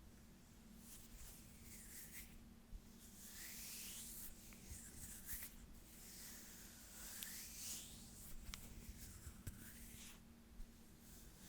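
Hands rubbing and brushing softly close to the microphone: slow, faint, repeated swishes, about one every second or two, with a few light ticks.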